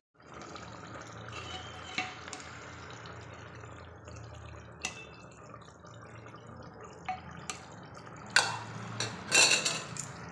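Steel ladle stirring a wet chicken-and-potato curry in an aluminium pressure cooker pot, clinking and knocking against the metal, with a quick cluster of louder knocks near the end, over a steady low hiss.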